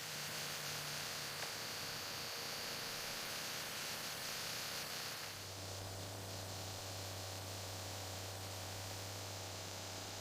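Steady hiss, joined about five seconds in by a steady low hum.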